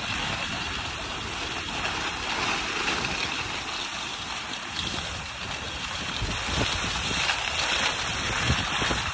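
Wind buffeting the microphone over a steady rushing hiss, as from moving quickly over snow.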